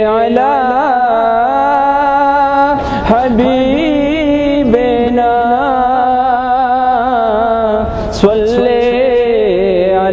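A man's voice chanting the Islamic salawat on the Prophet in long, drawn-out notes with wavering ornaments. The chant breaks briefly about three seconds in and again near eight seconds.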